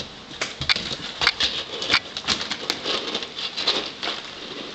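Dry cat food kibble rattling and clattering in quick, irregular clicks as it is scooped up.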